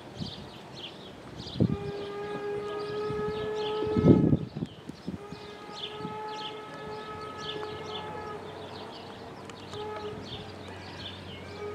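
Steam locomotive whistle blowing two long blasts, each a few seconds, with a third starting at the very end. A brief low rumble about four seconds in is the loudest moment, and birds chirp throughout.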